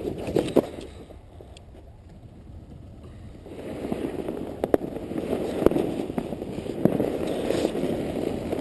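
Inflatable snow tube sliding over packed, rutted snow as it is towed, a rough rushing scrape with a few sharp knocks as it hits bumps; the scraping grows louder about three and a half seconds in.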